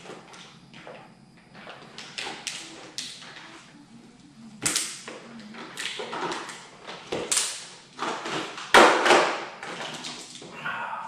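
Tesla Model 3 plastic front bumper cover and its brackets being handled and fitted: an uneven string of taps, clicks and knocks, the loudest knock about nine seconds in.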